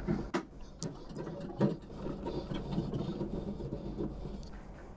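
A few sharp clicks, then a small electric screwdriver whirring as it backs a screw out of the microwave's sheet-metal casing.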